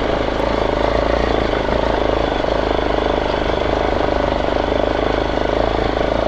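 Hero XPulse 200's single-cylinder four-stroke engine running steadily as the motorcycle is ridden, mixed with road and wind noise.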